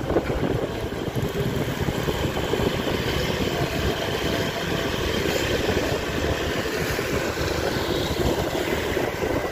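Steady motorbike engine and road noise while riding slowly along a street still wet from heavy rain.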